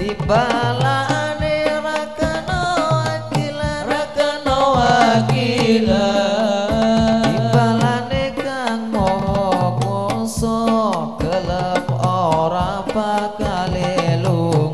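Hadroh ensemble performing sholawat: male voices singing a melismatic devotional melody through microphones over hand-struck frame drums (rebana) in a steady rhythm.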